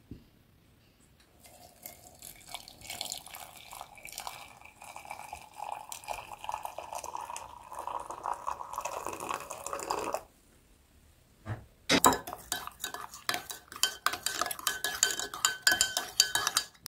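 Hot tea poured into a ceramic mug, the sound of the stream rising in pitch as the mug fills. After a short pause, a metal spoon stirs the tea, clinking repeatedly against the inside of the mug.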